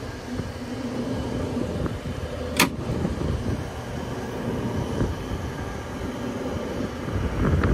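Trane packaged rooftop unit running on test with its newly replaced condenser fan motor: a steady low rumble, with one sharp click about two and a half seconds in.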